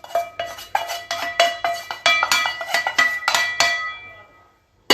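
A metal spoon striking and scraping against a steel cooking pot many times in quick succession, each hit ringing, while spice powder is mixed in. The clatter stops about four seconds in.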